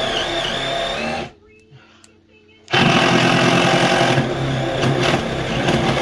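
Power drill running in two long bursts: it stops abruptly about a second in and starts again just before the middle.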